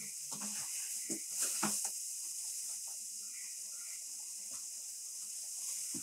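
Steady hiss of light rain falling on garden foliage. A few soft footsteps sound in the first two seconds, and faint bird calls come in the middle.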